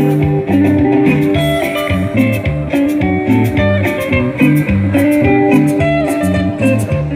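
Music with guitar over a moving bass line and a steady beat.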